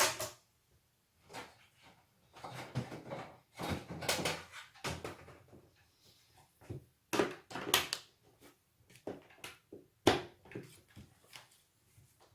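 Small tools and phone parts handled and set down on a workbench: irregular knocks and clatter, with stretches of scraping and rustling.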